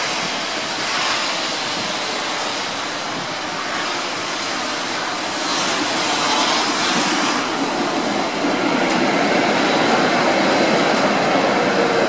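A two-car electric tram runs past close by on snow-covered track. The rumble of its wheels grows louder from about halfway as it draws level, and a faint whine comes in near the end.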